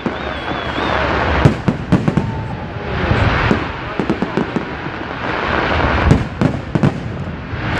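Fireworks display: a rapid, irregular series of loud bangs from bursting shells, mixed with stretches of dense crackling.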